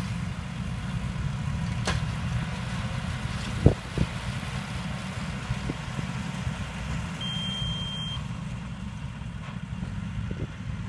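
Tractors, Kubota L4508 and John Deere 5204, running in the field as they pull round straw balers, a steady low engine rumble. A short high steady beep sounds about seven seconds in, and a single knock comes near the four-second mark.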